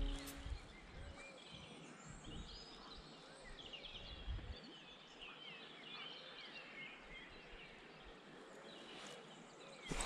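Faint birdsong: many short chirps and whistles from songbirds in the bankside trees, over a low outdoor hiss.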